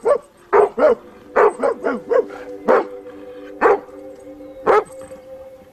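Golden retriever barking: a string of short, sharp barks, close together in the first two seconds and then spaced out about a second apart.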